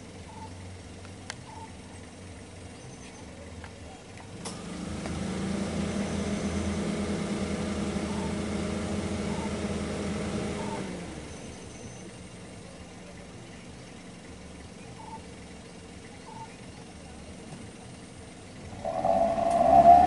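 Vehicle engine idling, running louder and higher for several seconds from about four seconds in before its pitch drops and it settles back. Near the end a loud, wavering high-pitched sound starts.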